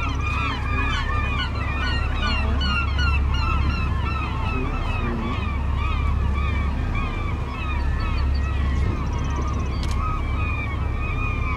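Many seabirds calling at once, a dense unbroken chorus of short overlapping calls, over the low steady hum of the boat's engine.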